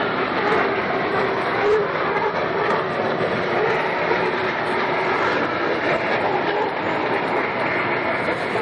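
Unlimited racing hydroplanes running at speed across the water, their turbine engines making a steady, dense rush of noise with a faint wavering whine.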